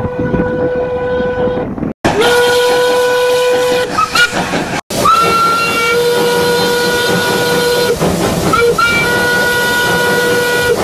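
Steam locomotive whistle sounding several long blasts with a few short toots between them, over a steady hiss of steam. The sound is broken by two sudden drop-outs.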